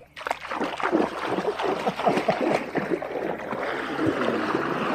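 Water splashing and churning as a person plunges into a bathing pond. It starts suddenly, and the busy splashing eases into a steadier wash after about three seconds.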